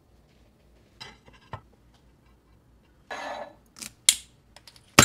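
Scattered short, crisp crunches and clicks after a quiet first second, the sharpest and loudest near the end: a panko-fried chicken katsu sandwich being handled and bitten into.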